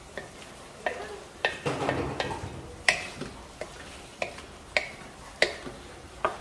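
A wooden spatula stirs sausage-and-vegetable stir-fry in a large wok, knocking and scraping against the pan at irregular intervals over a soft sizzle of frying.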